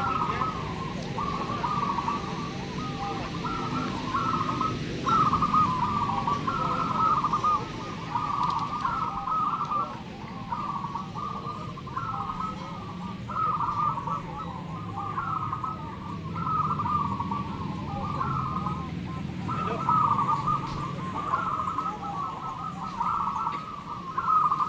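Many zebra doves (perkutut) cooing at once, their phrases overlapping without a break, over a low steady background rumble.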